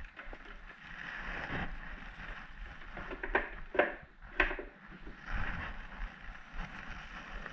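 Hands handling a tipped-over Honda HRX217 push mower from underneath: a few sharp knocks and clunks, about four spread through the middle of the stretch, as the mower is shifted and its chute is turned.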